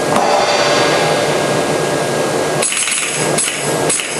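Theatre organ playing sustained tones, then about two and a half seconds in its pneumatic percussion takes over, striking in a steady beat about twice a second with a bright metallic ring.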